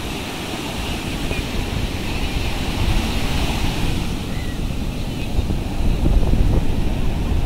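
Ocean surf washing up onto a sandy beach, a steady rush of breaking waves that swells louder about six seconds in, with wind rumbling on the microphone.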